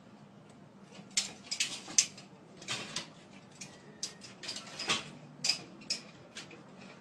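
A dog's claws and paws clattering on the rungs of a metal ladder as it climbs: an irregular run of sharp metallic clicks and knocks starting about a second in.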